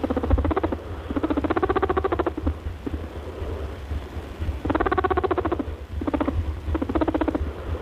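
Pet rabbit making bouts of rapid, pulsed grunting vocalizations, four or five runs of half a second to a second each, over a steady low hum.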